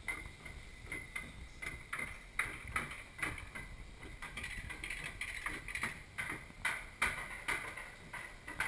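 Rail-mounted bobsled car running along its track, with a run of sharp clicks and clacks, about two or three a second, over a low rumble.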